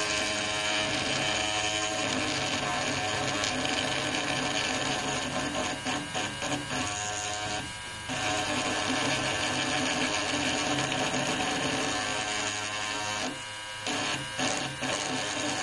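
Mini cordless rotary tool running steadily with a drill bit boring into hard wood, its small motor whining; the sound drops out briefly twice, about eight seconds in and again about thirteen seconds in. The bit is making very slow progress through the wood.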